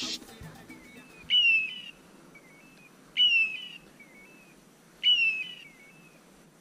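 Hunting dog's beeper collar giving a short, high electronic call that drops slightly in pitch, three times at even intervals about two seconds apart.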